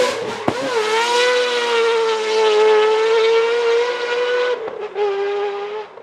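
Naturally aspirated, peripheral-ported 26B four-rotor engine of a Mazda RX-7 FD3S drift car, held at a steady high-revving scream through a long drift. The revs dip briefly about four and a half seconds in and pick up again slightly lower. The sound then falls away sharply near the end.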